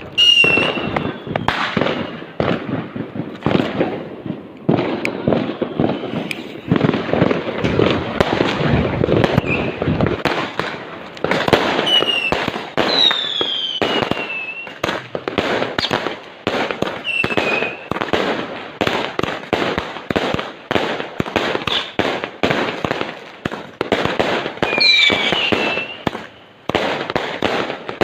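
Fireworks going off in a dense, unbroken barrage of bangs, with several short whistles falling in pitch scattered through it.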